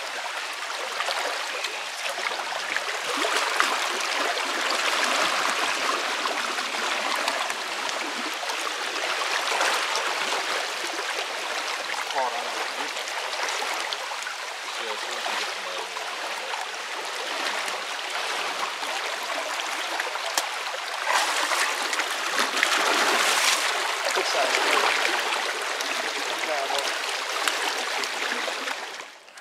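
Shallow creek water sloshing and splashing as people wade and wrestle a snapping turtle out from under a root-tangled bank, over the steady rush of the stream. Several louder surges of splashing come and go.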